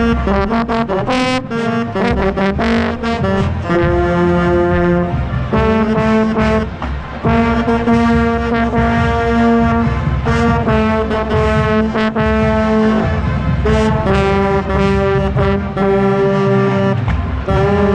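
Marching band of brass and saxophones playing loudly in full chords, with a tenor saxophone close by. The chords are held and change every second or two, with drum strokes punctuating the first few seconds.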